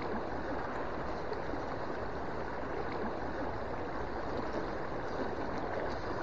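Shallow mountain stream running over rocks in a riffle, a steady rushing of water.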